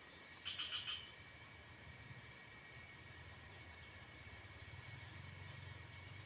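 A steady, high-pitched chorus of insects, with a faint low hum underneath.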